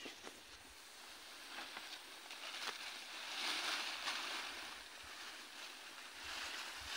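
Faint rustling and crackling of leafy cut branches and twigs being handled and pressed together into a bundle, a little louder about halfway through.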